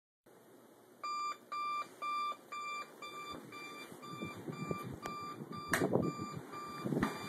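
Electronic alarm clock beeping, a steady high beep about twice a second, starting about a second in. A sharp knock about six seconds in comes as a hand reaches to the bedside, with bedding rustling around it.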